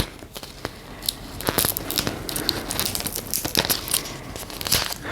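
Stiff plastic packaging of a Barbie mini fashion pack crinkling and tearing in irregular bursts of small crackles and clicks as it is pulled at by hand, failing to open along its intended tear line.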